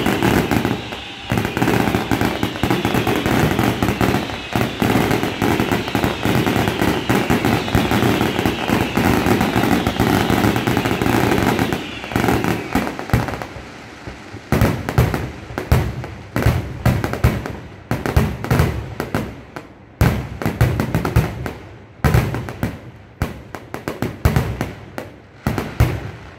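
Fireworks display in a dense barrage: a continuous run of rapid bangs and crackling for about the first twelve seconds, then thinning to separate sharp bangs, several a second.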